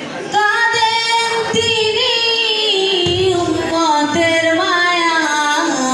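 A girl singing a Bengali Islamic devotional song (gojol) unaccompanied into a microphone, amplified through a loudspeaker. Long held notes that bend and waver in pitch, dropping to a lower held note near the end.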